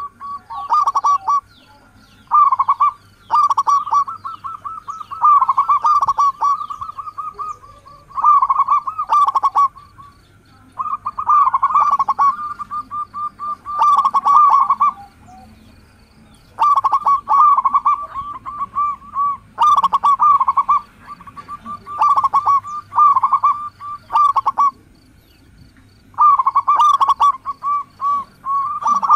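Zebra dove (local perkutut) cooing: repeated phrases of quick, pulsed coos, each lasting a second or two, with short pauses between them.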